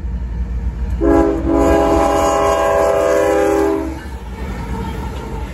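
CSX freight locomotive's air horn sounding one long blast of several notes at once, about three seconds, as it comes up to the grade crossing, over the steady low rumble of the approaching double-stack train.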